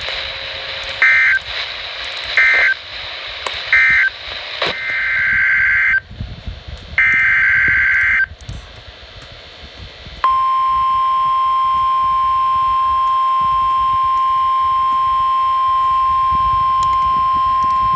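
Emergency Alert System SAME data tones from a NOAA Weather Radio broadcast: three short buzzy digital bursts about 1.4 s apart (the end-of-message code), then two longer bursts of about a second and a half, the header of the next alert. About ten seconds in, the steady single-pitched 1050 Hz weather radio warning alarm tone starts and holds.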